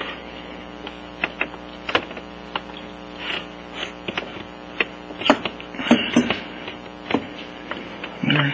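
Scattered light clicks and knocks as the finned cylinder of a 70cc Kymco Super 9 scooter engine is worked by hand down over the piston onto the crankcase and base gasket, over a steady low hum.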